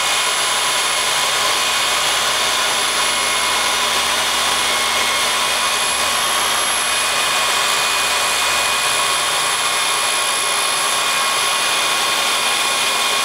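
Electric drill running at a steady speed with a constant high whine, spinning a balsa stick through a chisel-bladed dowel cutter at a slow, even feed.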